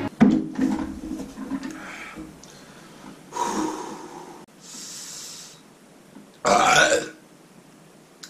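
A man burping and blowing hard breaths out through pursed lips against the burn of a raw onion he is eating. There is a sudden loud sound right at the start, hissing exhales in the middle, and a louder strained one near the end.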